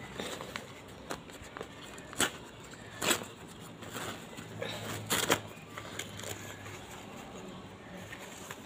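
Newspaper being unfolded and crumpled by hand, rustling and crinkling, with a few sharper crackles about two, three and five seconds in.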